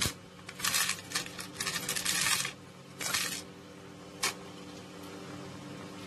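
Small metal parts and plastic pieces clinking and rattling as they are handled on a tabletop, in several short uneven bursts over the first four and a half seconds, over a steady low hum.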